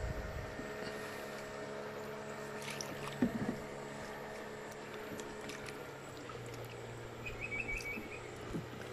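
Boat motor running steadily at low level, its hum dropping slightly in pitch about six seconds in. A single knock comes about three seconds in, and a brief quick series of high chirps near the end.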